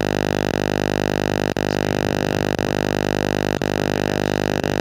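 A loud, steady electronic buzz made of many held tones at once, unchanging in pitch, with brief dropouts about once a second.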